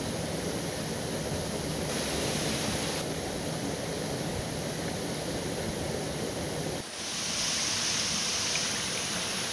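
Waterfall running full after heavy rain: a steady, even rush of falling water. About seven seconds in the sound shifts abruptly, becoming thinner and hissier.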